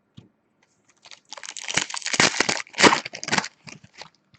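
Wrapper of a hockey card pack crinkling and tearing as it is ripped open, a dense crackle lasting about two seconds in the middle, with a few light ticks around it.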